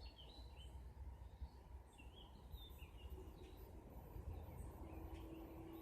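Faint outdoor ambience: a low, steady background hiss with a few short, distant bird chirps scattered throughout, and a faint steady hum in the second half.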